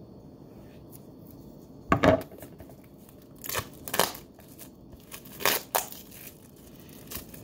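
Plastic shrink wrap being torn and peeled off a cardboard knife box by hand: short crinkling tears about two seconds in, around three and a half to four seconds, and again about five and a half seconds in, over quiet room tone.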